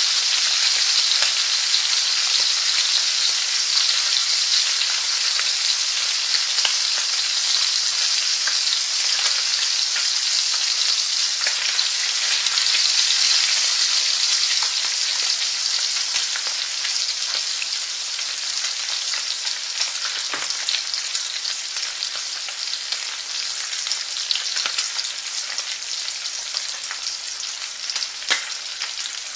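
Food frying in a pan: a steady sizzle with scattered small crackles and pops, easing a little in loudness over the second half.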